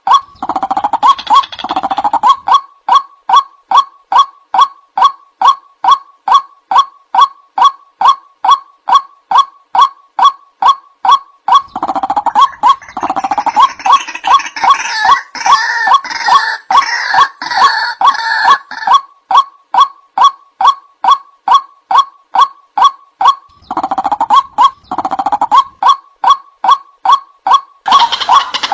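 Male white-breasted waterhen calling: a sharp, loud 'wak' note repeated steadily about twice a second. A harsher, denser chatter joins in from about twelve to nineteen seconds in, and briefly again near the end.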